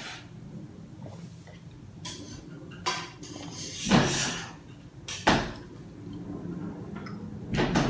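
Drinking water from a plastic bottle: swallows and sharp crackles of the thin plastic, with a louder breathy exhale between sips about four seconds in.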